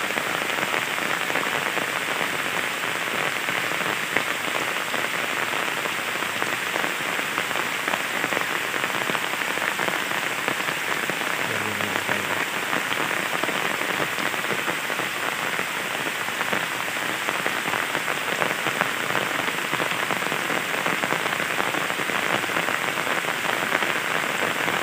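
Heavy rain falling steadily on the flooded pond's water and the wet ground: an even, unbroken hiss.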